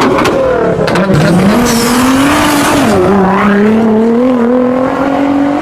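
A car engine running hard under load. Its pitch rises, drops sharply about three seconds in, then climbs slowly again.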